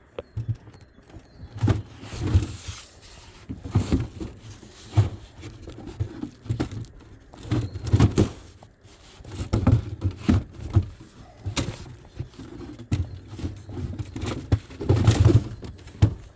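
Irregular knocks, bumps and scrapes of things being handled close to the microphone, coming unevenly a fraction of a second to a second apart.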